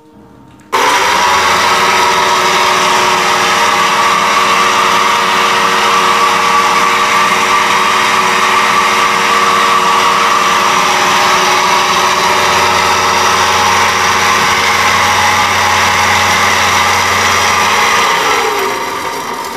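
Farrata pedestal fan's motor running very loud: a steady whirring whine that starts abruptly under a second in and holds. Near the end the pitch falls and it quietens as the fan winds down. The noise comes from the motor's worn-out bearings.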